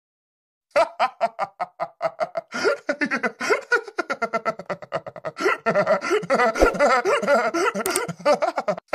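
A cartoon potato character laughing: a voice laughing in quick, rapid bursts, starting about a second in.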